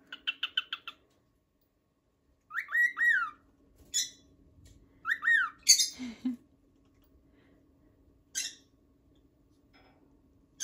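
Pet bird calling: a quick run of chirps, then two groups of rising-and-falling calls, a harsh squawk, and a single call near the end.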